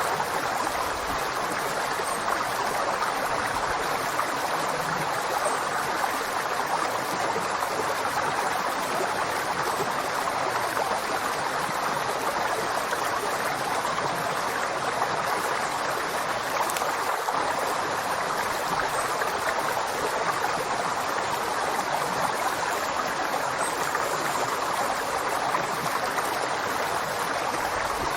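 River water flowing steadily, an even rushing hiss that stays the same throughout.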